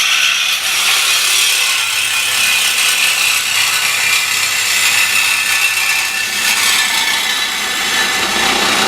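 Power tool cutting through the truck's steel exhaust pipe, a steady high-pitched cutting noise without breaks. The pipe is rusted at the clamp and cuts through unusually fast.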